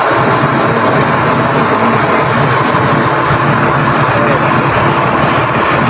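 Heavy construction machine's engine running loud and steady, working under load.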